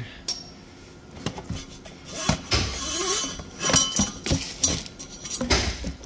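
Irregular clinking and rattling of metal parts and tools being handled on a workbench, with several sharper knocks.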